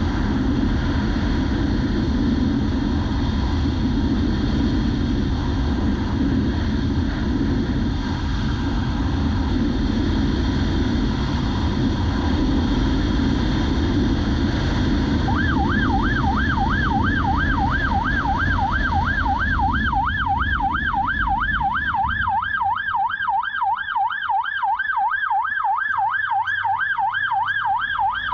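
Wind rush and engine and road noise from a police motorcycle riding at speed. About halfway through its siren comes on, a fast warble rising and falling about three times a second, and the low wind and road rumble drops away a few seconds later.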